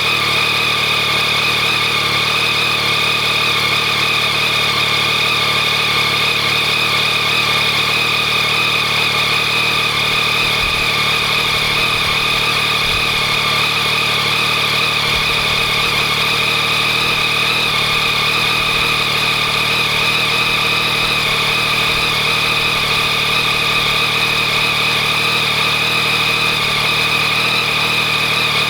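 2014 Yamaha MT-09's inline three-cylinder engine idling steadily while warming up from a cold start, with a rattling, ticking noise from the engine that persists even though the cam tensioner has been replaced with the countermeasure part.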